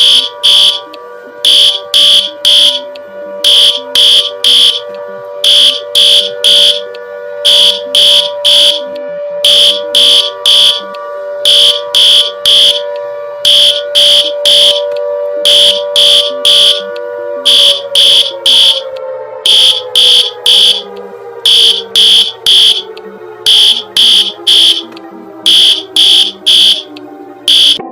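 Synthesized emergency-alert alarm: loud, high-pitched beeps in quick groups of three, repeating about every two seconds, over a steady low drone. About two-thirds of the way through, the drone starts sliding slowly down in pitch while the beeps keep going.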